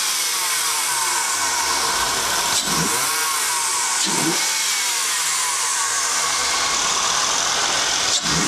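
Honda 3.0-litre VTEC V6 with a cold air intake, heard from the open engine bay while it is revved up and allowed to fall back, the pitch rising and dropping more than once. It is running stock, before a throttle body spacer is fitted.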